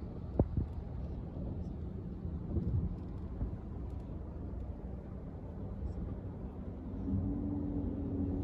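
Low rumble of a car's engine and road noise heard inside the cabin, with a couple of brief knocks near the start. About seven seconds in, a steadier, louder engine hum comes in.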